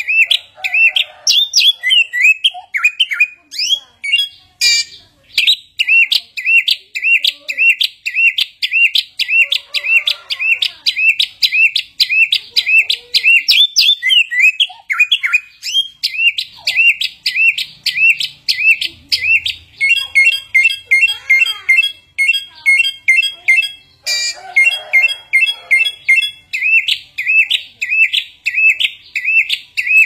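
A caged samyong (ruby-throated bulbul) singing loudly and without pause, a fast run of short repeated chirps about three a second. Around twenty seconds in it shifts to a more varied phrase for a few seconds, then goes back to the repeated chirps.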